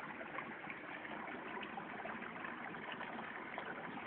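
Steady rush of flowing stream water.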